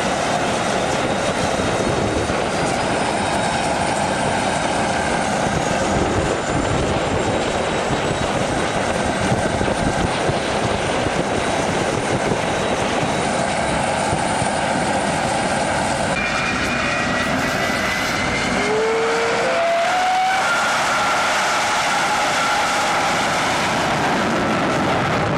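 North American Eagle jet car's turbojet engine (a General Electric J79 from an F-104 Starfighter) running loud as its turbine is spooled up, a steady rush of noise with a faint whine rising in pitch over the first several seconds. About sixteen seconds in the sound shifts, with brief rising tones a couple of seconds later.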